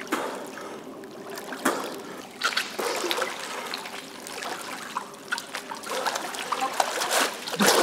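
Pool water splashing and sloshing as a swimmer kicks and strokes on his back in the lifesaving backstroke, with irregular sharp splashes over a steady wash of moving water; the strongest splash comes near the end.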